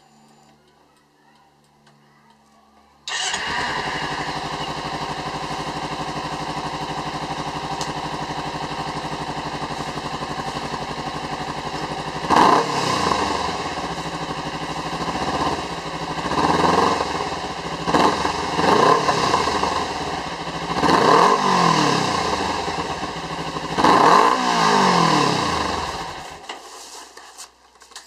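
Kawasaki Ninja 250 parallel-twin engine, breathing through a MotoGear carbon full exhaust with twin silencers. It starts about three seconds in and idles steadily. From about halfway it is blipped up and back down about five times, then it is switched off near the end.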